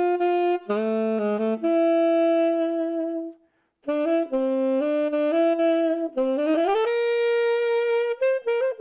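Unaccompanied tenor saxophone playing a melodic phrase: a few quick notes and a long held note, a short breath pause about three and a half seconds in, then a second phrase that slides upward to a held note near the end.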